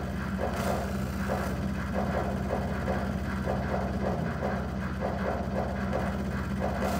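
Electronic glitch noise: a steady low buzzing hum under choppy, stuttering pulses that repeat unevenly several times a second.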